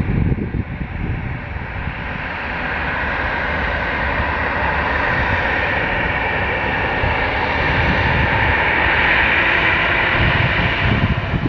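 Jet engines of an Airbus A319-111 (CFM56 turbofans) running as the airliner passes, a steady roar that grows louder over several seconds and then holds. Wind buffets the microphone at the start and near the end.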